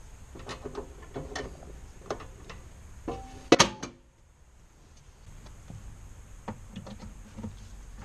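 A series of short clicks and knocks, then a loud metallic clank with a brief ringing about three and a half seconds in, followed by a few fainter clicks.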